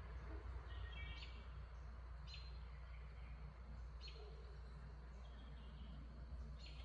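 A bird's short, sharp high calls, four of them spaced a second or two apart, over a steady low hum.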